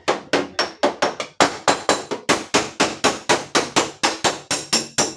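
Hammer rapidly striking the sheet-steel panel of a Toyota Calya's rear door, about five blows a second in a steady rhythm, beating out a deep dent.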